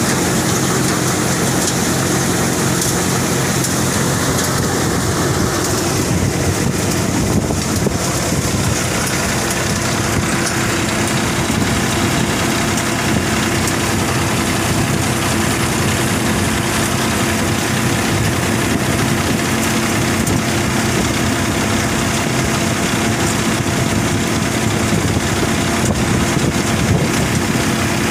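Threshing machine running steadily while threshing cumin, with a constant engine hum and the rushing whir of the machine.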